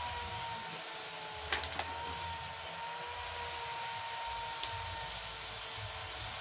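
A steady hiss with a faint, slightly wavering whine from some background machine. Light clicks of hand tools and metal parts come from work on a small water pump engine, two about a second and a half in and one more a few seconds later.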